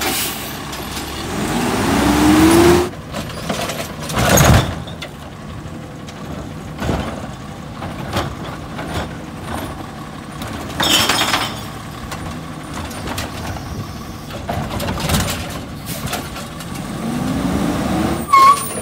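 Heil Rapid Rail side-loader garbage truck with a natural-gas engine working its automated arm to empty a recycling cart. The engine revs with a rising whine about a second in as the arm lifts, there is a loud knock about four and a half seconds in, and a short burst of clatter about eleven seconds in as the cart is tipped. The engine revs up again near the end as the truck moves off.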